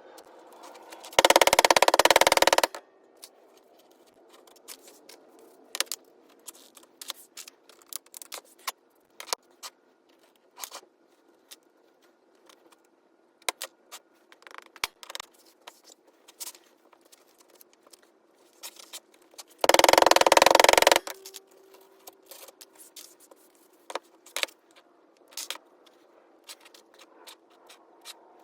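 Small metal pieces clinking and tapping as they are handled, with two loud rushing noises about a second and a half long, one about a second in and one about two-thirds of the way through.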